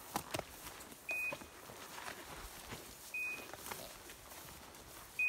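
A dog's beeper collar sounding a short, high beep about every two seconds, over the footsteps of someone walking through brush and dry grass.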